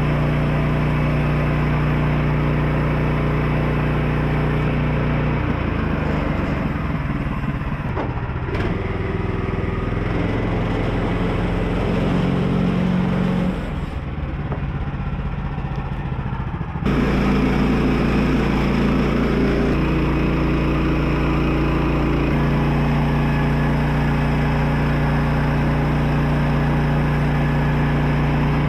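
Engine running steadily under varying load. Its pitch shifts about five seconds in, it eases off for a few seconds past the middle, then it settles back to a steady run.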